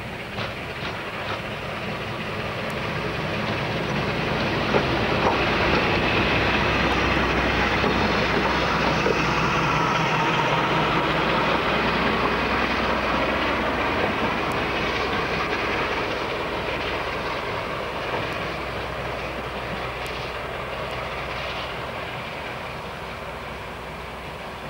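BR Class 52 'Western' diesel-hydraulic locomotive D1013 with its twin Maybach engines, running past close by. It grows louder to a peak about a quarter of the way in and then slowly fades as it moves away, with its wheels clicking over rail joints as it nears.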